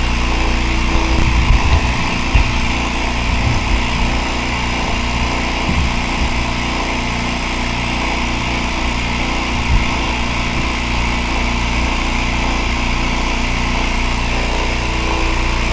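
Vacuum pump of a woodturning vacuum-chuck system running steadily with an even hum. Its exhaust is muffled by a rag stuffed into a PVC pipe fitting to cut down the noise.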